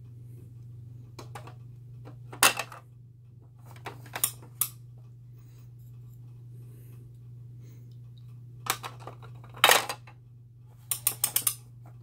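Hard plastic shape blocks clacking against a plastic toy elephant shape sorter: scattered sharp clicks and knocks, the loudest about two and a half seconds in and again near ten seconds, with a quick run of about five clicks near the end.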